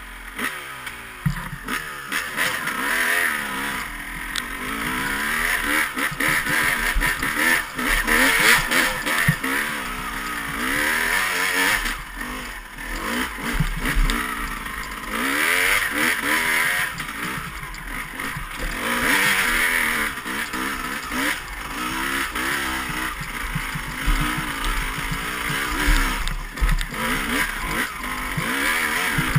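Dirt bike engine revving up and down again and again as it is ridden over rough trail, its pitch rising and falling with each burst of throttle. Scattered knocks and rattles come through as the bike hits rocks and ruts.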